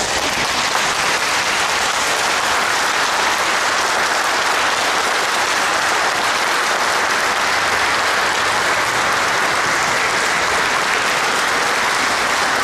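A large crowd applauding steadily, dense clapping with no break.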